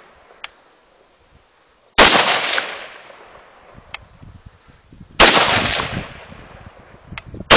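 Rifle shots from a scoped AR-15-style rifle, two about three seconds apart and a third right at the end, each with a long echoing tail. About two seconds after each shot comes a faint tick.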